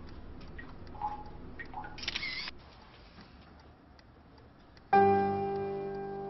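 Smartphone camera shutter sound, a short click-burst about two seconds in, as a selfie is taken. About five seconds in, a music chord strikes loudly and rings on, slowly fading.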